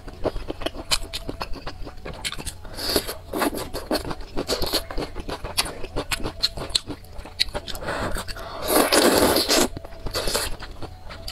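Close-miked eating sounds: chewing and crunching of spicy hot-pot food, with chopsticks scraping and clicking in the metal bowl, as a run of short clicks. One louder rush of noise lasting about a second comes near the end.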